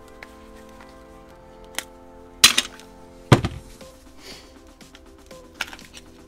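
Several sharp cracks and knocks, loudest in the middle, as the plastic case of a Ring battery pack is pried open along its seam, over steady background music.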